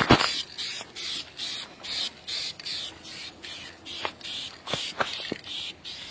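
Aerosol spray paint can hissing in short, even bursts, about two a second. A sharp knock right at the start and a few light clicks later on.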